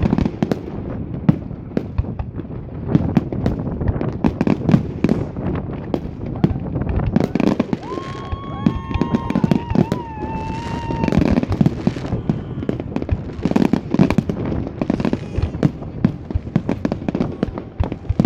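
New Year's fireworks: a dense, irregular run of firecracker and rocket bangs and crackles, with a whistling tone held for about three seconds in the middle.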